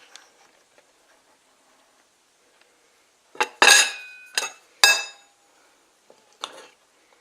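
Cutlery clinking against a plate: a quick run of four or five sharp clinks that ring briefly, about halfway through, then one more near the end.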